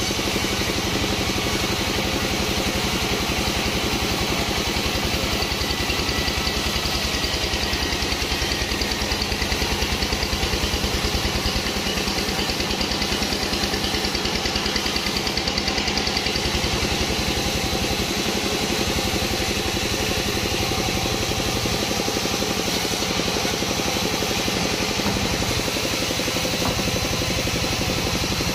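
Sawmill machinery running steadily: an engine with a rapid, even pulse, unchanging throughout.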